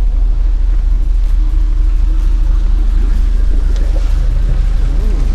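Steady low rumble of a cruise ship's engines and funnel heard on the open deck, a constant noise the crew's guests notice as spoiling the sound.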